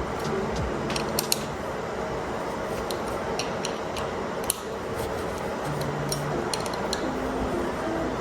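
Light metallic clicks and taps from hand tools working on bicycle parts, scattered irregularly over a steady hiss, with a louder knock at the very end.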